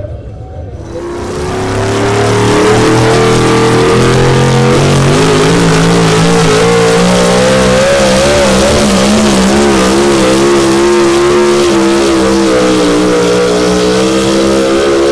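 Modified 4x4 pulling truck's engine at full throttle on a pull. It builds and climbs in pitch over the first few seconds, then holds at high revs with a wavering pitch.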